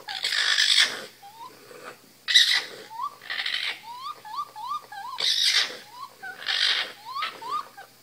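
Raccoon kits calling: a run of short, bird-like rising chirps, broken about five times by louder, harsher squealing cries.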